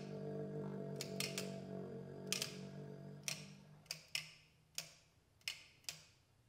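Trumpet and trombone holding a low sustained chord that fades away about halfway through, over a run of about ten sharp, irregularly spaced clicks that go on after the notes have died away.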